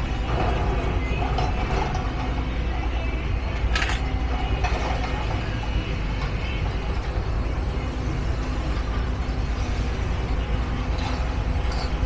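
Heavy diesel machinery running steadily at the demolition site, with a low constant rumble and intermittent metallic clanking and knocks.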